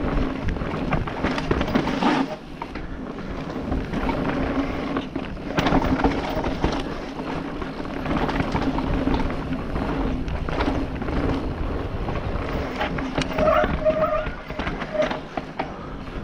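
Mountain bike descending a rough dirt and rock trail, heard from a helmet-mounted camera: wind rushing over the microphone and tyres rolling over dirt and stones, with frequent knocks and rattles from the bike over the bumps.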